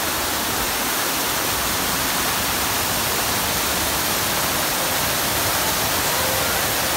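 Fountain water spraying from a whale sculpture and cascading over the rim of a round basin into a pool: a steady, even rushing splash.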